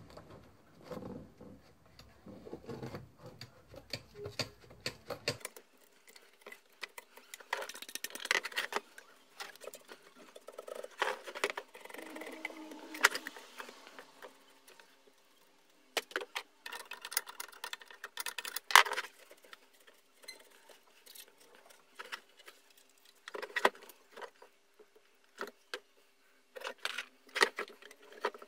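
Disassembled electric hand planer being handled: its plastic housing and small metal parts give scattered clicks, taps, scrapes and light rattles.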